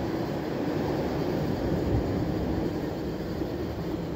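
Steady low rumble of wind buffeting the microphone at the seashore, with no distinct strokes or clicks.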